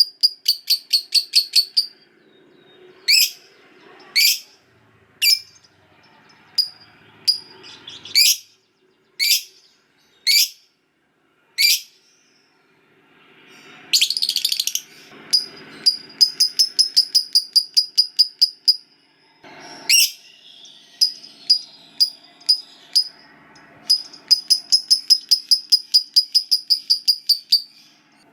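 Lovebird giving its long chattering song (ngekek): fast trills of repeated high notes, broken in the first part by a string of single sharp chirps about a second apart, then resuming in long runs toward the end.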